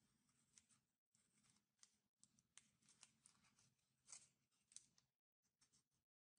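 Faint rustling and crinkling of origami paper being folded and creased by hand, with many small sharp crackles.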